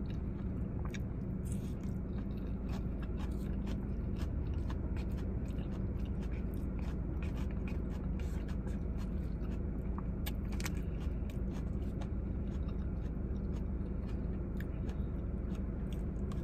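Eating from a takeout bowl: a fork scraping and clicking against the bowl many times, with chewing, over a steady low hum.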